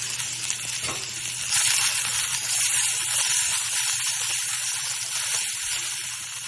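Sliced onions, cashews and tomato pieces sizzling in butter in a cast-iron kadai as they are stirred with a metal spoon; the sizzle gets louder about a second and a half in.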